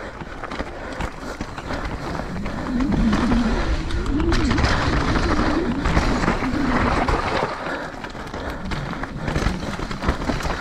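Downhill mountain bike ridden fast over a rough dirt trail: tyre noise on the ground with a constant rattle of knocks and clicks from the bike, loudest in the middle.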